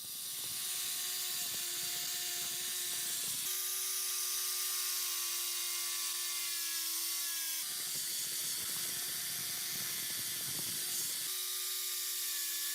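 A small electric power tool's motor running with a steady whine, heard in several spliced stretches, its pitch sagging slightly now and then as if loaded against the work.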